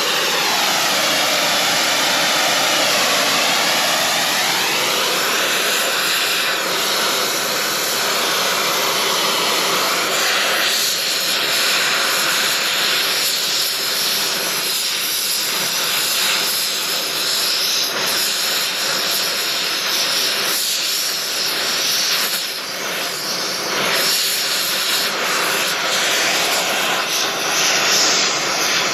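Propane torch giving a steady, jet-like roar as it burns packed grease out of a John Deere BN rear axle housing. The tone sweeps down and back up in the first few seconds as the flame moves.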